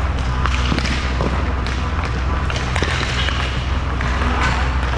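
Skating sounds: a steady low rumble with a scatter of short knocks and thuds.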